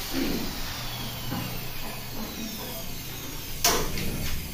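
A low steady hum with a single sharp knock about three and a half seconds in, followed by a few lighter taps.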